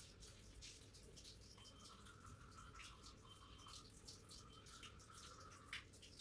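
Near silence with faint scratching ticks of a black gel pen drawing fine lines on watercolour paper, and a faint steady high tone for most of the middle of it.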